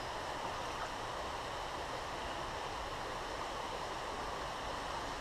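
Steady rush of a small creek's flowing water, even and unbroken.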